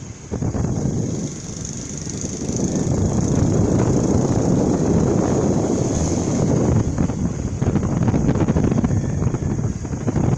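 A motor scooter riding along: its engine runs under wind buffeting the microphone, and the sound grows louder about two seconds in.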